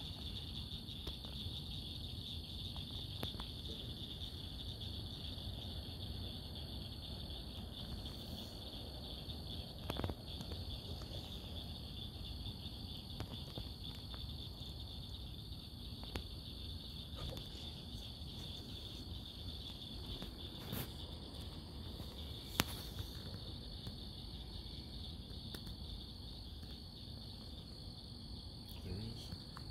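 A steady chorus of night insects, a continuous high trill that never lets up, over a low steady rumble. A few sharp clicks stand out, the loudest about two thirds of the way in.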